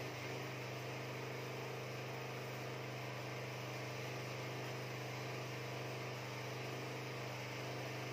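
Welding machine running with a steady low electrical hum while a weld is being made, heating the steel sheet.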